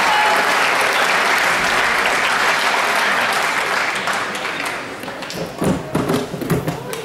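Spectators applauding a won badminton rally; the clapping fades out after about four to five seconds, and a few voices follow near the end.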